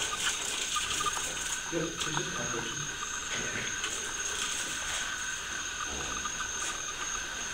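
Faint, irregular rattling and light tapping of unknown origin, which the listeners take for footsteps, over a steady high-pitched drone.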